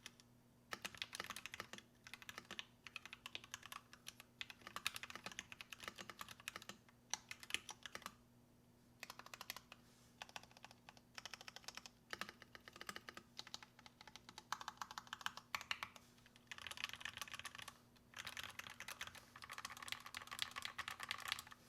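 Typing on an NK65 Entry Edition mechanical keyboard with lubed Gateron Black Ink linear switches and PBT keycaps: runs of rapid keystrokes in bursts of a second or few, with short pauses between them.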